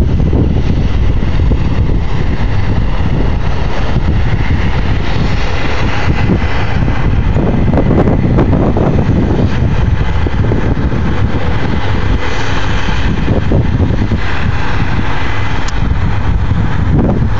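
Case IH 8120 combine harvester running steadily under load while cutting heavy wheat.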